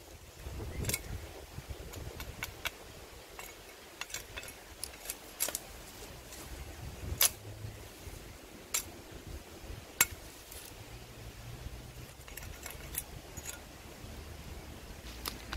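Cleaver blade chopping and stripping side shoots off a thin green branch: a string of sharp, irregular chops and cracks, the loudest about seven, nine and ten seconds in, with rustling of leaves between them.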